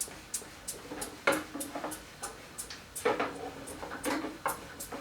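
Snowblower primer bulb being pumped over and over to prime the carburetor: a quick run of soft clicking presses, about three or four a second, some fuller and louder than others.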